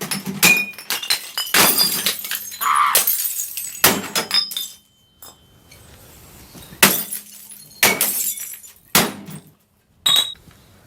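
Glass bottles smashing on a microwave and the ground: a string of about eight sharp breaking crashes with short quiet gaps between them.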